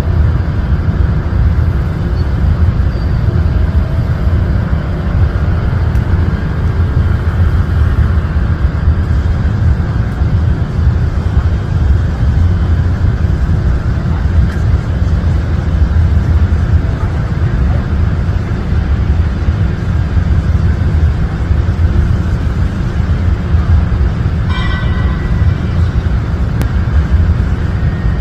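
A steady, loud low rumble throughout, with a brief high-pitched sound about three-quarters of the way through.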